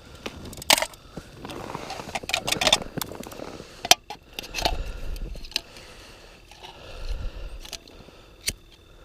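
Handling noises: scraping with several sharp clicks and knocks, and a short low rumble twice midway.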